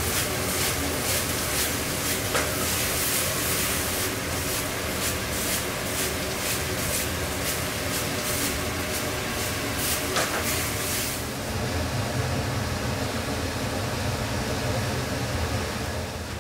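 Chicken and sauce sizzling in a wok tossed over a high gas burner, the hiss coming in repeated surges with each toss, over the steady roar of the burner flame. About eleven seconds in the sizzle falls away, leaving the low roar of the burner.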